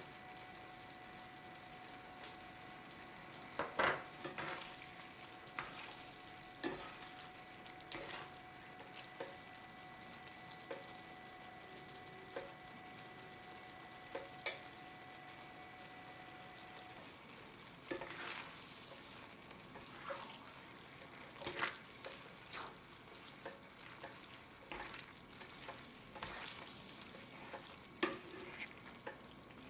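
A spoon or spatula stirring food in a frying pan, with scattered scrapes and knocks against the pan over a low, steady sizzle. A faint steady tone stops about halfway through.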